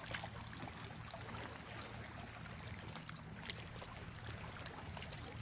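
Low, steady drone of distant motorboat engines on the lake, with a faint even hiss of water over it.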